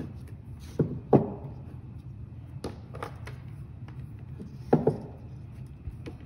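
Handling knocks of a small stepper motor and multimeter test probes on a tabletop: a few short sharp knocks and taps, the loudest about a second in and another near five seconds, over a low steady hum.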